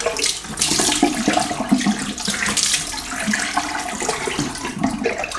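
Water running from a bathroom sink tap, splashing unevenly, as the face and razor are rinsed between shaving passes.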